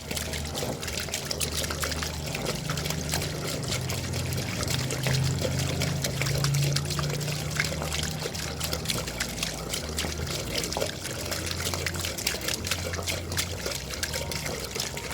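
Water dripping and trickling: a dense, irregular patter of small drops and splashes, over a low steady hum.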